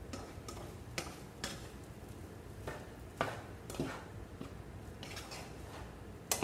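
Spatula scraping and knocking against a frying pan as cooked rice is tossed and stirred: irregular scrapes and taps every second or so, with a sharper knock near the end.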